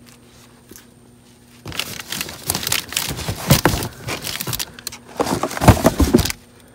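Cardboard boxes and plastic bags being shifted and rummaged through in a dumpster: scraping cardboard and crinkling plastic in two bouts, the first starting about two seconds in and the second, louder one ending shortly before the end.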